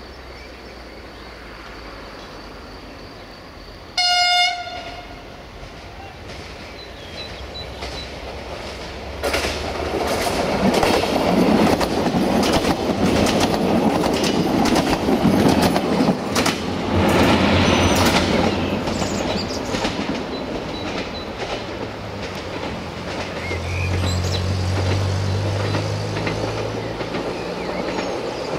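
Two coupled Siemens Desiro diesel multiple units: one short horn blast about four seconds in, then the train approaches and passes close by, wheels clicking over the rail joints. The sound then fades, with a low engine hum near the end.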